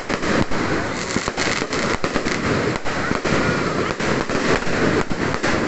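Fireworks going off: a dense, irregular run of sharp cracks and bangs, several a second, without a pause.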